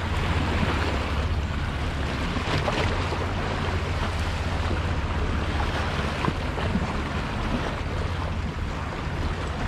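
Wind buffeting the microphone over small sea waves washing against a rock ledge, a steady noisy wash with a low rumble.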